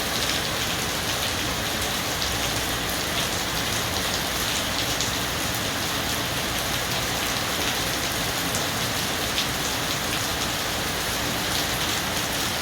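Heavy rain falling steadily, with the close patter of many drops striking a surface.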